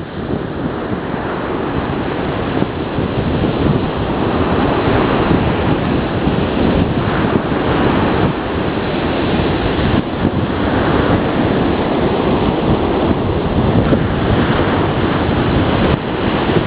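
Wind buffeting the microphone on a beach, over the wash of surf: a loud, steady rush of noise with no bird calls standing out.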